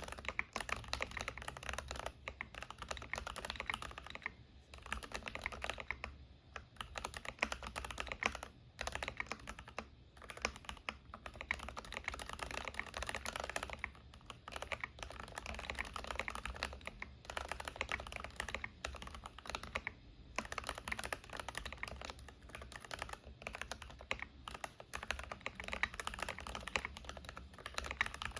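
Typing on a stock Keychron K8 Pro mechanical keyboard with Gateron G Pro Red linear switches and PBT keycaps: a fast, steady clatter of keystrokes in runs, broken by brief pauses.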